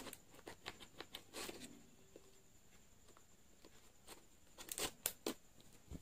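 Faint scratching and tapping of fingers on a small cardboard product box, picking at its seal sticker. The sounds come scattered, with a few louder ones about a second and a half in and again around five seconds.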